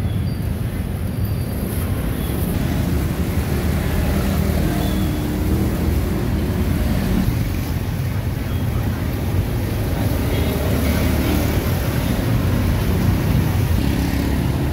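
Steady low rumble of street traffic, cars and motorbikes passing, with faint voices now and then.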